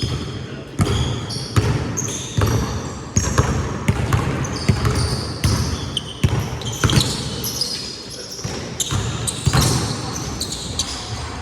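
Basketball being dribbled on a court in a pickup game, the ball bouncing about every three-quarters of a second, with short high squeaks between the bounces.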